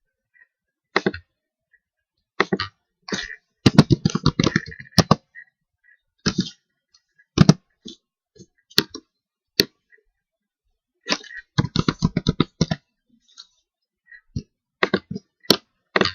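Computer keyboard typing in two quick bursts, with single clicks scattered between, typical of keys and a mouse on a desk.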